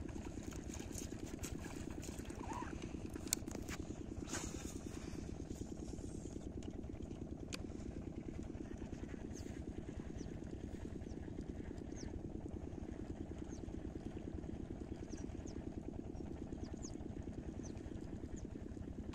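A small engine running steadily with a fast, even low pulse, with a few sharp ticks about three to four seconds in.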